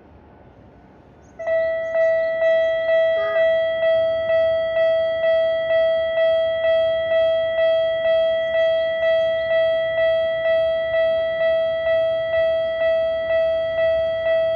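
Japanese railway level-crossing alarm starting about a second and a half in and ringing its repeated 'kan-kan' tone at about two strokes a second, the warning that a train is approaching the crossing.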